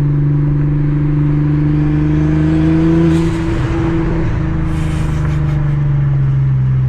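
Saab 9-3 Aero's turbocharged 2.8 V6 pulling under acceleration, the engine note rising steadily. About three seconds in the throttle lifts and the blow-off valve vents with a hiss as the revs drop. Another hiss follows a little before five seconds.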